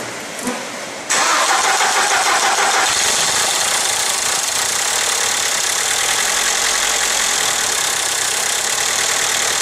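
1.8-litre turbo four-cylinder engine starting up suddenly about a second in, then running steadily at idle. It is running with no oil pressure; the owner blames either a bad oil pump or a bottom end so sludged that no oil gets through.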